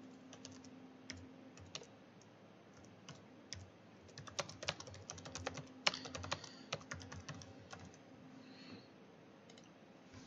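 Typing on a computer keyboard: irregular runs of light key clicks, busiest in the middle and thinning out near the end.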